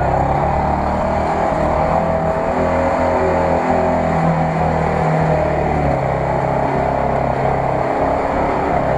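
UAZ-469 4x4's engine running steadily under load as it drives through a muddy field, its pitch dropping a little about halfway through.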